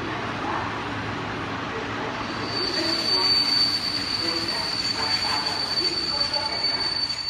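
Train running on the rails, with a steady high-pitched wheel squeal that comes in about two and a half seconds in and holds.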